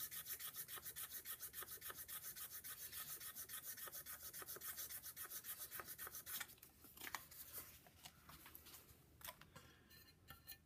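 Sandpaper scraping across a cane clarinet reed in fast, even back-and-forth strokes, about seven a second, taking a little wood off one side of the reed to balance it and make it less resistant. The strokes stop about six seconds in, and a few light handling clicks follow.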